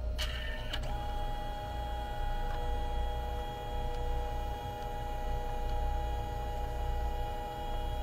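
Canon Selphy CP1300 dye-sublimation photo printer at work: a couple of clicks, then its motor running with a steady whine as it moves the paper through a print pass. A second, lower tone joins a couple of seconds in.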